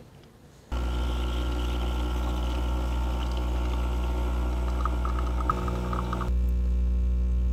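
Electric espresso machine switching on about a second in and running with a steady loud hum as its pump pulls an espresso shot. A hissing layer above the hum drops away near the end while the hum carries on.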